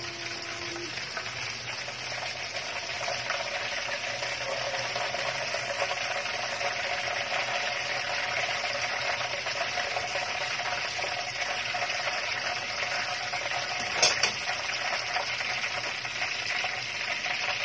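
Whole chicken deep-frying in hot oil, a steady sizzle. A single sharp knock about fourteen seconds in.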